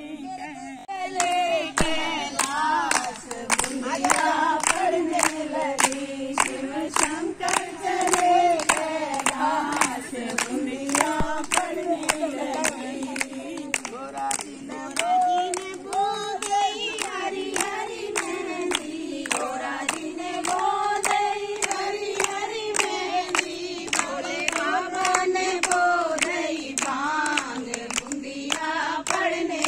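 A group of women singing together to steady rhythmic hand clapping, about two claps a second.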